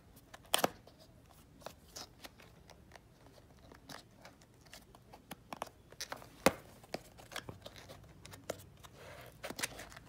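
Hands handling a cardboard box and picking at its tape seals with the fingers: scattered light taps, scratches and clicks, with two sharper clicks about half a second in and again past the middle.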